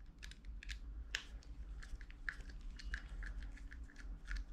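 Soft, irregular clicks and scrapes of a small screwdriver turning a hex screw in a plastic phone-mount part, several ticks a second.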